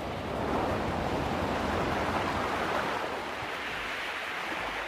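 Steady rushing outdoor noise with no distinct events. It swells in at the start and eases slightly near the end.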